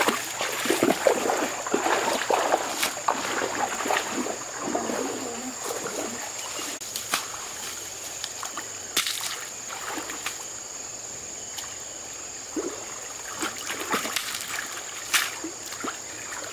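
Shallow stream water splashing and sloshing as people wade and work in it, moving bamboo branches and gravel, busiest in the first few seconds. Scattered sharp clicks follow over a quieter trickle.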